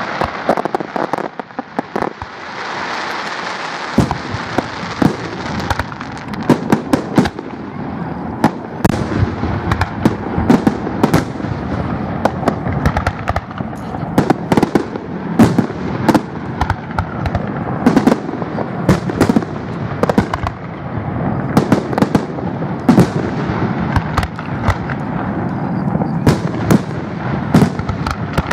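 Aerial firework shells bursting in a rapid barrage, sharp bangs that come several a second from about eight seconds in, over a continuous crackle.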